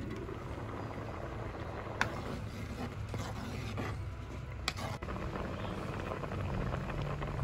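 Liquid boiling in a clay pot over a wood fire: a steady low bubbling rumble. Two sharp knocks, about two seconds in and again near the middle, from utensils striking the pot.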